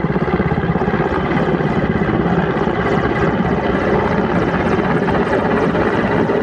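Mil Mi-17 helicopter running, its main rotor giving a steady, fast chop over the whine of its turbines.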